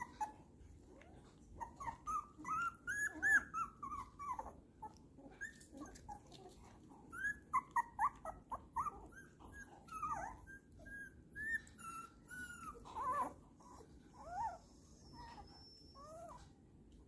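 Young puppies whimpering and squeaking: many short, high whines that bend up and down in pitch, coming in quick flurries in the first half and middle and thinning out toward the end.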